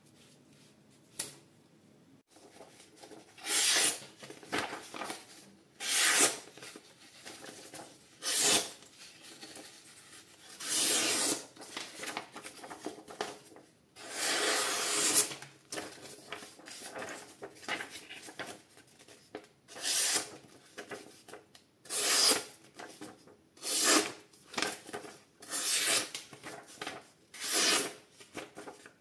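Camillus Guise Camo folding knife slicing into material in a cutting test: about a dozen separate rasping strokes, roughly one every two seconds, coming more quickly near the end.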